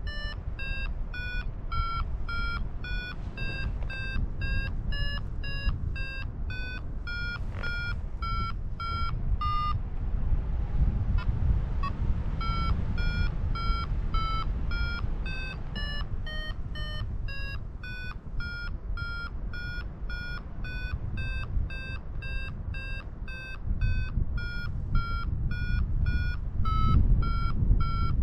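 Flight variometer beeping, about three short beeps a second, its pitch stepping up and down as the glider climbs in lift; the beeping breaks off for about two seconds around ten seconds in. Wind rushes on the microphone underneath.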